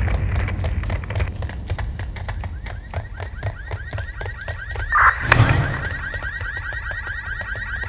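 Electronic sci-fi soundtrack: a fast ticking pulse about five times a second over a low rumble, with a high steady synth tone swelling in about five seconds in.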